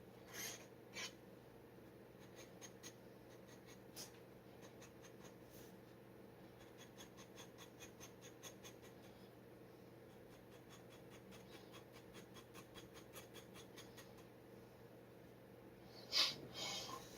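G-nib dip pen scratching on paper in quick short strokes: a few separate taps, then a long run of rapid fine ticks, over a faint steady room hum. A louder burst of handling noise comes near the end.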